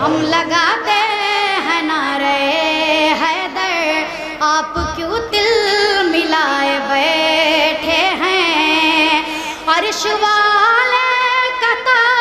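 A boy singing a devotional manqabat in a high voice, drawing out long, wavering held notes in several phrases.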